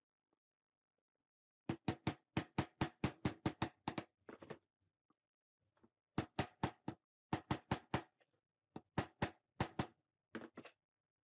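Hammer tapping on a steel socket used as a drift, driving a bearing down onto an electric chainsaw motor's armature shaft: runs of quick, sharp taps, about four a second, with short pauses between runs.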